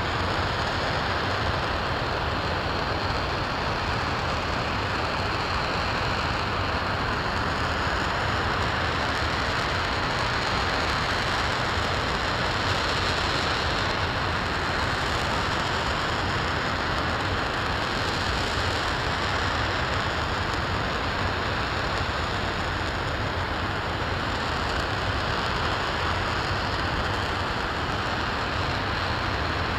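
RS-25 liquid-hydrogen/liquid-oxygen rocket engine in a steady long-duration hot-fire test: a continuous, even rushing noise with no breaks or changes in level.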